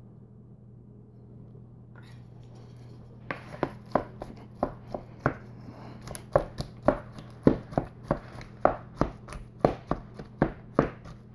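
A spoon breaking up boiled potatoes in a cooking pot, knocking against the pot in quick, irregular strikes that start about three seconds in and come two or three a second, over a low steady hum.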